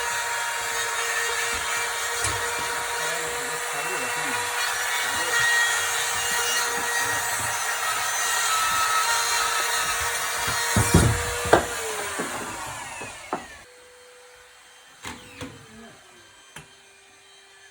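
High-speed power cutting tool, such as a rotary drywall cutout tool, running steadily while it cuts through drywall with a high whine, then spinning down near the end, followed by a few light knocks.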